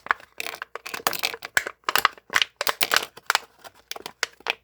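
Dense, irregular clicking and crackling of small plastic parts: knock-off building-block minifigures and their plastic packaging being handled and pried apart.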